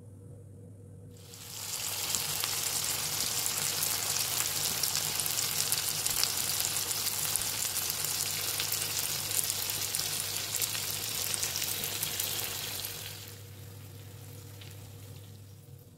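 Food sizzling and crackling in hot oil in a frying pan, starting about a second in and stopping well before the end.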